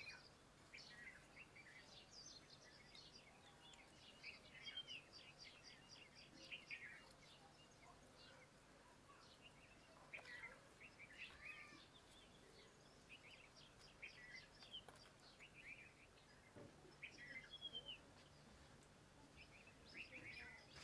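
Faint birds chirping and calling: scattered short whistled notes and quick trills, over a quiet steady hum.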